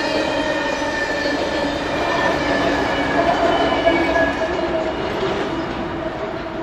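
Empty coal train rolling past: steel cars on the rails with a steady squeal from the wheels, then the rear distributed-power locomotive going by about three to four seconds in, loudest there. After that the sound fades as the train draws away.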